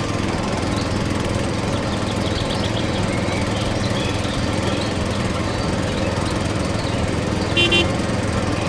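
Small motor of a DIY mini wheat thresher running steadily with a low hum. A brief high-pitched double chirp sounds near the end.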